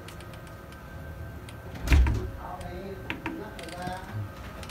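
Small sharp clicks of the buttons and controls on a Dynacord CMS 1600 mixer's effects section as they are pressed and turned, with one louder thump about two seconds in.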